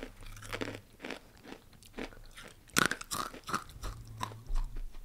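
Close-miked chewing of crunchy murukku snack sticks: irregular crunches, with the loudest bite about three seconds in.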